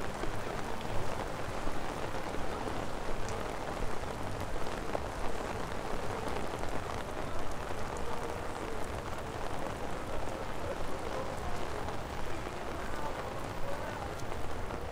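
Steady rain on a wet city street: an even hiss with scattered small drop ticks.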